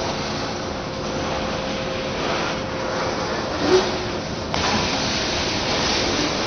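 A freight train of covered hopper cars rolls past close by, with the steady noise of steel wheels running on rail. There is a short louder squeal a little past the middle, and the noise changes abruptly soon after.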